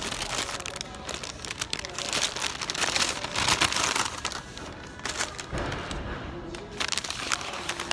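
A wrapped sandwich being unwrapped by hand, its wrapper crinkling and rustling in a dense run of crackles.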